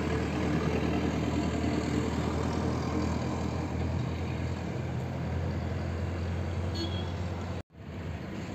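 Steady low rumble of a motor vehicle's engine with outdoor road noise. The sound cuts out for an instant near the end, then resumes.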